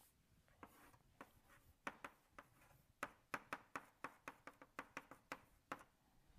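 Chalk tapping on a blackboard as a formula is written out: a run of short, irregular taps that come faster from about halfway.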